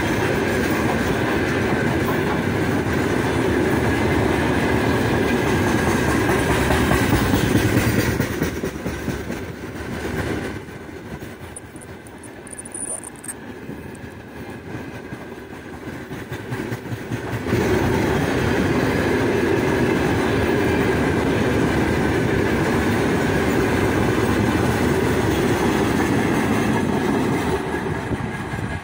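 Freight wagons of a heavy freight train rolling past close by: a steady rumble of steel wheels on the rails. It gets quieter from about nine to seventeen seconds in, then comes back loud, and drops off right at the end.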